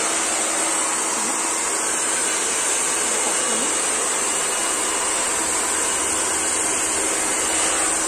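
Handheld hair dryer running steadily, blowing onto long hair as it is combed straight: an even rush of air with a steady hum and a high whine.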